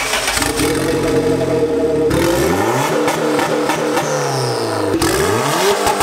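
Turbocharged Honda Civic engine revved by hand at the throttle, its pitch climbing and falling back in repeated sweeps, with a few sharp cracks about five seconds in.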